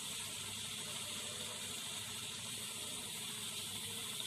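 Steady hiss from an idli steamer on the stove, with water boiling in the pot beneath the cloth-lined plate.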